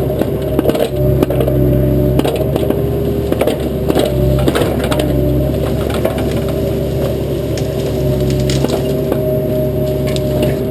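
Bobcat excavator's engine running steadily under work while brush and small trees crack and snap in many irregular sharp breaks as the machine tears through them.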